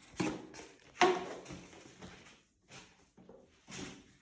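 Handling noise from latex 260 modelling balloons being pressed and rubbed together by hand: a few short rubbery knocks and rubs, the two loudest about a quarter second and a second in, then fainter ones near the end.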